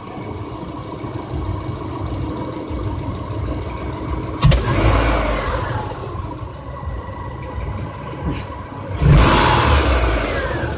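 2002 Subaru Outback's boxer engine idling, revved by two quick throttle snaps, about four and a half seconds in and about nine seconds in, each falling back to idle. The snaps are part of a manifold vacuum test that the engine passes, with a good reading.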